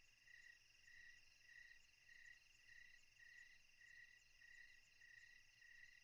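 Faint crickets chirping: a regular chirp about every two-thirds of a second over a steady, higher trill.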